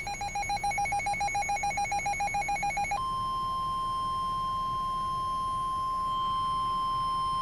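Weather radio alert signal: a rapidly alternating two-tone electronic warble, about eight changes a second, lasting about three seconds. It is followed by a single steady high tone, the NOAA Weather Radio 1050 Hz warning alarm tone, which sounds ahead of a warning message.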